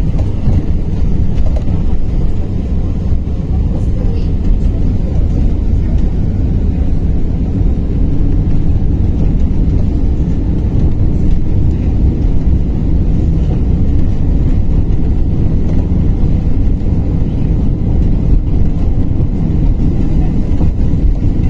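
Steady low rumble of road and tyre noise heard inside a moving KamAZ-6282 battery-electric city bus as it cruises.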